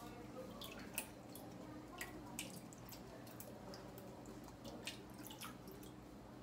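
Black grass jelly being cut up with a knife in the palm, pieces dropping and dripping into a metal bowl of liquid: faint, scattered wet ticks and drips.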